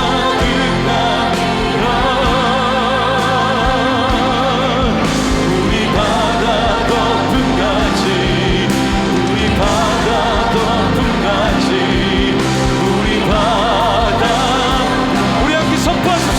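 Live contemporary Christian worship music: several voices singing together over a band of keyboards, guitar, bass guitar and drums, with cymbals.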